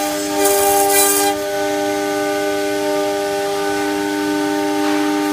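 CNC router spindle running with a steady high whine as its end mill cuts a 4 mm flat fibreglass sheet, with a louder hissing burst of cutting noise from about half a second to a second and a half in.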